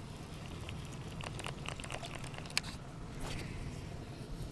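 Light handling noises: a run of small clicks and taps, one sharper click a little past halfway, then a brief rustle, over a low steady rumble.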